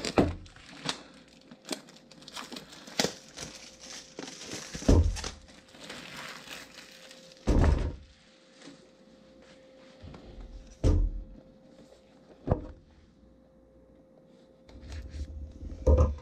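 Plastic shrink wrap crinkling and crackling as it is pulled off a cardboard box, mostly in the first half, with several thunks as the box is handled and set down on a tabletop.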